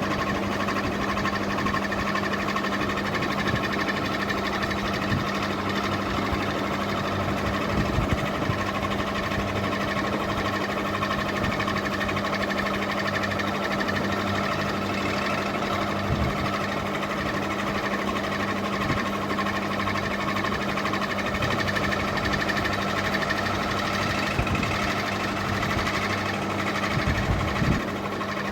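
Ceiling fan running: a steady motor hum and whir, with a few brief low thumps.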